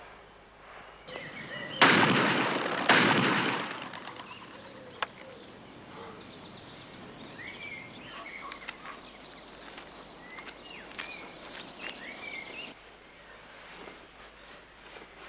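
Two shotgun blasts about a second apart, each dying away, followed by small birds chirping that cut off suddenly near the end.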